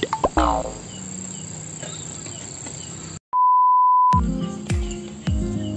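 Crickets chirping in a steady high trill; about three seconds in the sound cuts out and a steady electronic beep plays for about a second, followed by background music with repeated falling low notes.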